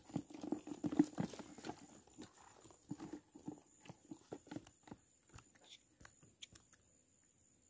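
Irregular soft taps and knocks from handling a just-caught climbing perch (betok) on the line, dense for the first couple of seconds, then thinning out and stopping about six seconds in.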